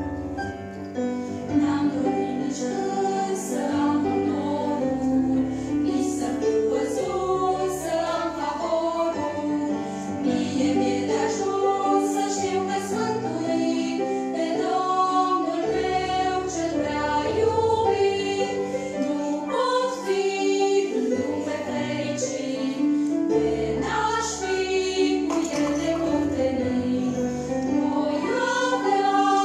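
A small group of women singing together into microphones, over keyboard accompaniment; the voices come in about a second in.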